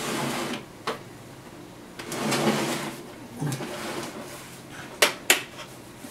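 A portable TV set handled and turned around on a wooden table: scraping and shuffling as it is slid, a click about a second in, and two sharp clicks in quick succession about five seconds in.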